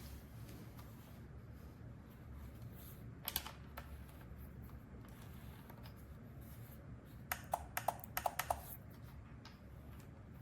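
A few light clicks about three seconds in, then a quick run of about eight clicks near the end, over a low steady hum.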